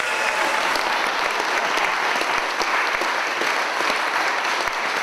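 A large crowd of guests applauding, with many hands clapping steadily together.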